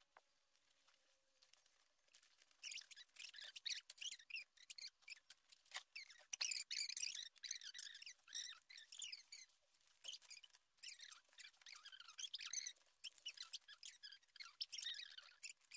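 Graphite pencil scratching on paper in quick, irregular shading strokes, starting about two and a half seconds in.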